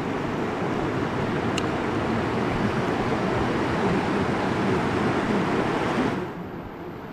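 Rushing river water: a loud, steady rush that suddenly turns quieter and duller about six seconds in.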